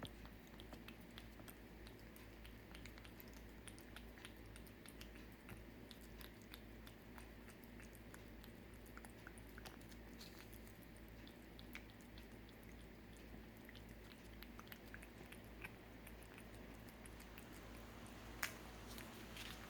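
A cat eating a Ciao Churu lickable puree treat: faint, irregular wet licking and chewing clicks, with one louder click near the end.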